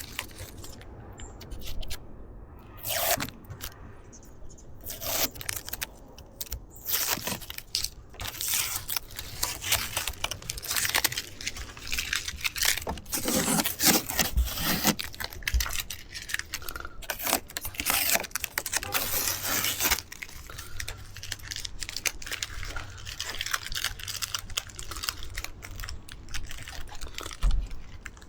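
Strips of tape being peeled off a car's paint and rear wing in a run of irregular ripping rasps and rustles, busiest in the middle stretch.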